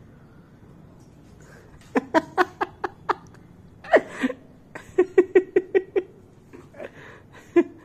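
A person laughing in quick runs of short 'ha-ha' pulses, starting about two seconds in, with a louder falling outburst around four seconds and another rapid run around five seconds.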